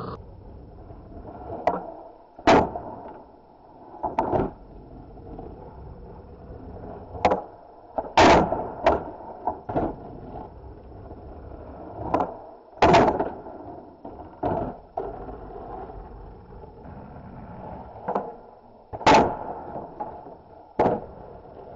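Skateboard wheels rolling on asphalt, broken by sharp clacks and knocks of the board popping off the tail and its wheels and trucks landing on the driveway and a low wooden pallet grind box, about fifteen in all at irregular intervals.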